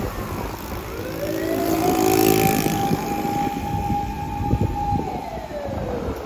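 Fire department command car's siren wailing through one slow cycle: the pitch rises about a second in, holds steady at the top for several seconds, then falls away near the end. Vehicle and road noise runs underneath.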